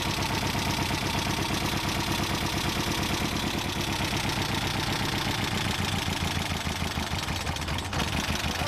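A trike's engine idling steadily with an even, rapid beat.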